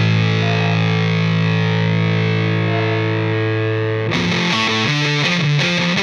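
Rock music with a distorted electric guitar: a held chord rings, then about four seconds in a riff of short, changing notes begins.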